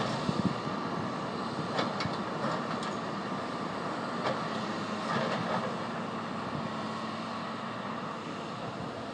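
Hydraulic excavator running at a distance as it works riprap boulders: a steady rumble with a faint engine hum and a few sharp clacks of rock or bucket in the first half.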